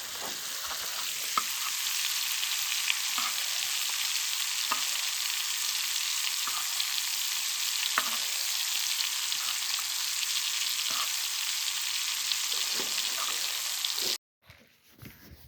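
Steaks sizzling in hot beef tallow: a steady frying hiss with scattered sharp pops and crackles of spattering fat. It cuts off suddenly near the end.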